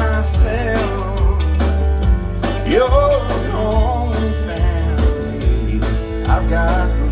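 Live country band playing an instrumental break: a fiddle carries a sliding, bending melody over strummed acoustic guitar, electric bass and drums with a steady beat.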